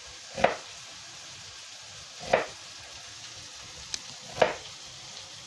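Kitchen knife chopping an onion on a wooden cutting board: three firm chops about two seconds apart, with a small click between the last two. Beneath them runs a steady sizzle of meatballs frying in hot oil.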